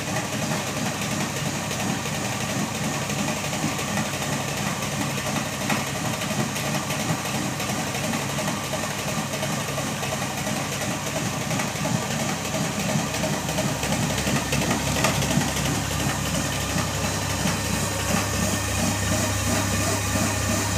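Stone grain mill running steadily, its millstones grinding grain fed from a sack in the hopper into meal. Near the end a regular low pulsing, about three beats a second, comes in under the steady running.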